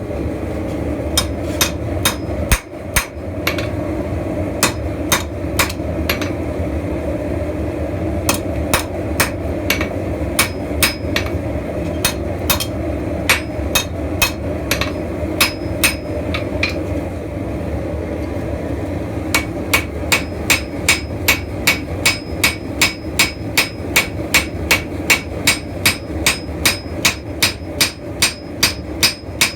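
Blacksmith's hammer striking steel on an anvil, each blow ringing, over a steady low rumble. The blows come unevenly at first, stop briefly past the middle, then resume as a fast, even run of about two to three a second.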